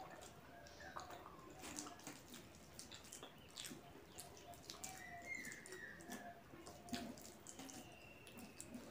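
Quiet, wet hand-eating sounds: fingers squishing and mixing soft starchy rice with mashed vegetables on a steel plate, along with chewing and lip-smacking, giving many small wet clicks.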